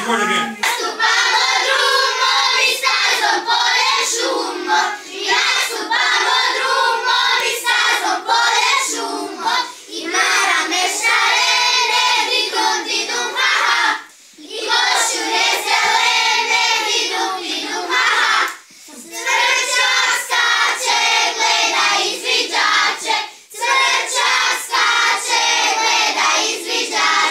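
A group of children singing a scout song together, with hand clapping along. The singing breaks off briefly twice.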